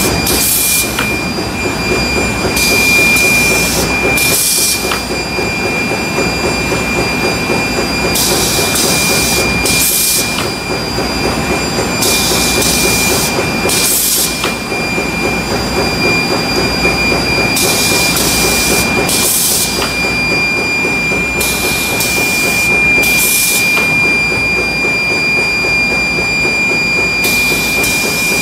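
Diaper-stacking machine running: a steady mechanical clatter under a constant high whine, with paired bursts of hiss about every five seconds.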